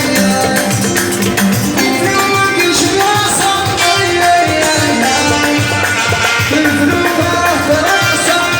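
Live raï music played loud, with a steady percussion beat under pitched melody lines.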